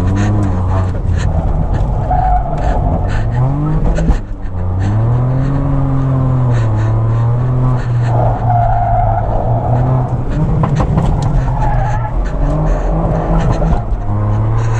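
Volkswagen Polo driven hard, heard from inside the cabin: the engine revs rise and fall, with a gear change about four seconds in. The tyres squeal three times as the car is pushed through corners.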